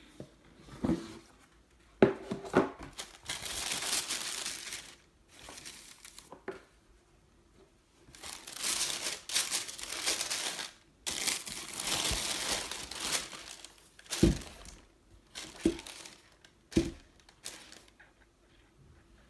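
Tissue paper crinkling and rustling as it is folded back by hand, in two long stretches, with a few soft knocks from handling the box and boot.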